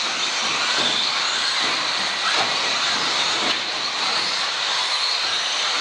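Radio-controlled off-road model cars racing on a carpet track: a steady, dense whir of small electric motors and tyres, with several high motor whines rising and falling as the cars accelerate and brake.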